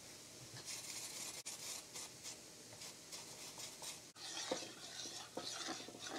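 Faint kitchen handling sounds: a cloth wiping a spill off a glass-top electric stove and a metal spoon scraping in a stainless saucepan of gravy, with a few light clinks of metal in the second half.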